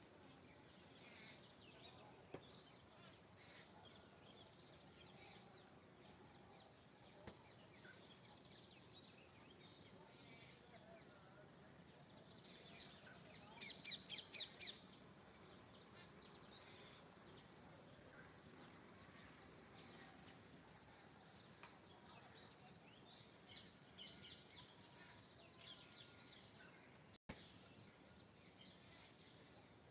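Faint outdoor chorus of songbirds chirping and calling over a steady background hiss, with a quick run of about six louder calls around the middle.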